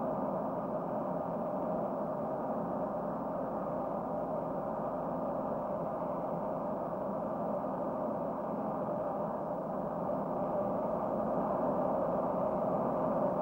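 Steady, muffled drone of a jet airliner's engines heard from inside the cabin, even and unchanging throughout.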